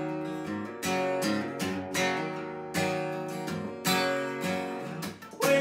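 Gibson acoustic guitar, chords strummed about once a second and left to ring, with a few quicker strums near the end.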